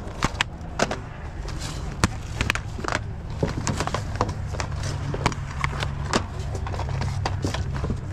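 Plastic video-game cases clacking against each other and snapping open and shut as they are handled, in a run of irregular sharp clicks over a steady low rumble.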